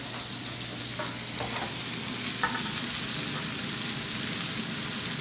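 Chicken pieces frying in a pan: a steady sizzle that grows louder over the first few seconds, with a few light clinks of a spoon against a metal colander and mixing bowl as orzo is tipped in.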